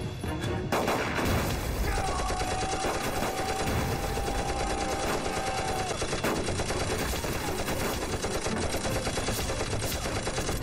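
Battle gunfire from submachine guns and rifles: rapid, continuous bursts of shots, beginning about a second in. A steady tone is held through the middle few seconds.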